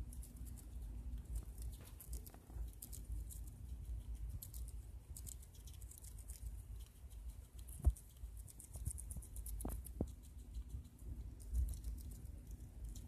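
Pet rat chewing a piece of chicken salad held in its paws: fast, faint clicking and nibbling of its teeth. A sharp thump about eight seconds in is the loudest sound.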